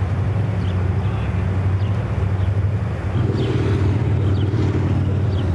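Steady low rumble of wind buffeting the camcorder microphone over the rush of the flooded river, with a few faint short high chirps.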